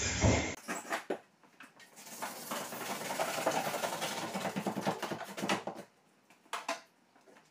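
Handsaw sawing along the edge of a window frame in quick rasping strokes, stopping about six seconds in, then a brief burst of strokes shortly after.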